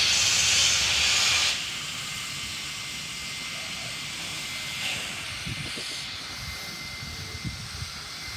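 Baldwin steam locomotive 5917 venting steam with a loud hiss that cuts off suddenly about a second and a half in, leaving a softer, steady hiss.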